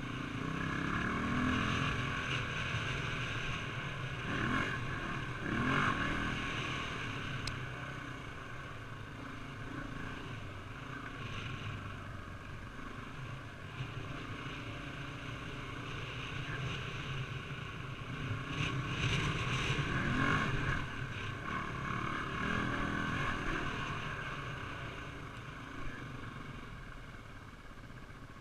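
Honda XR400R single-cylinder four-stroke dirt-bike engine running on a trail ride, its revs climbing and dropping with the throttle, with the biggest climbs near the start and again about two-thirds of the way through. Wind noise on the helmet-mounted microphone runs underneath.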